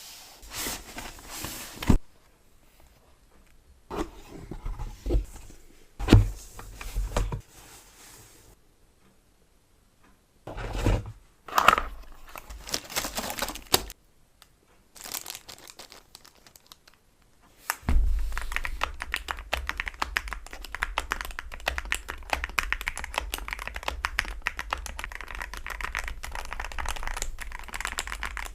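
Packaging being crinkled and torn in separate spells of handling noise, then, from about eighteen seconds in, an Akko MOD007 mechanical keyboard being typed on in a fast, steady run of key clicks.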